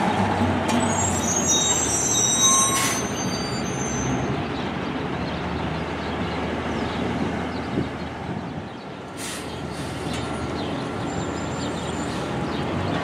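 Diesel engine of an automated side-loader garbage truck running as the truck pulls away. Thin high brake squeals come in the first few seconds, with short air-brake hisses about three and nine seconds in.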